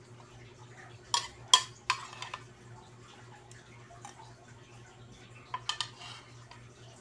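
A metal spoon clinking and scraping against a plastic bowl of porridge while eating: three sharp clicks about a second in and two or three more near the end.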